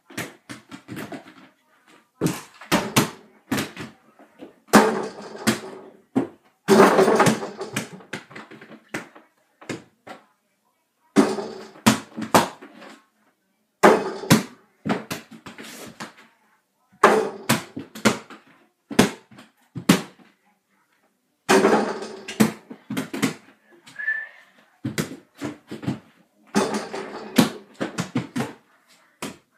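Mini basketball repeatedly bouncing and banging against an over-the-door mini hoop and the door: a series of thuds, often several in quick succession, every second or two.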